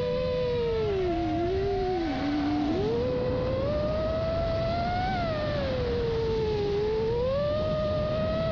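Brushless motors of an FPV quadcopter whining in flight. Their pitch rises and falls as the throttle changes, with separate pitches sliding independently, over steady wind and propeller-wash noise.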